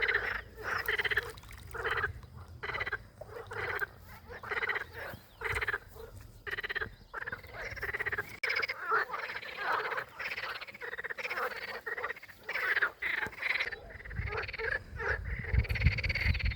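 Frogs croaking: many short calls repeated throughout, overlapping in a chorus. A low rumble comes in near the end.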